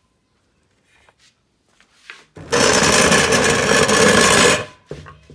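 A small electric motor runs loudly with a steady whirring noise for a little over two seconds, starting about halfway through, then stops abruptly.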